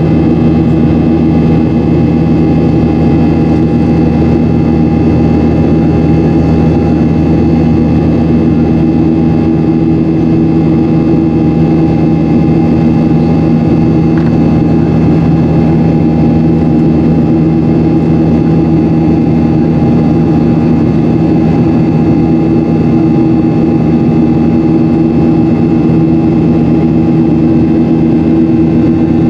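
Boeing 737-800's CFM56-7B jet engines and airflow, heard from inside the passenger cabin as a loud, steady drone in the climb after takeoff. A few steady hum tones sit over a broad rushing noise, unchanging throughout.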